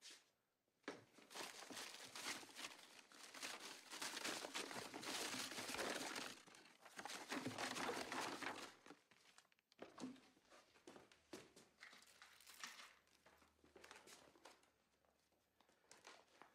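Paper crumpling and rustling as a hand rummages through a pile of crumpled papers and torn photographs. It is dense and fairly loud for the first several seconds, then thins out to scattered, quieter rustles and scuffs.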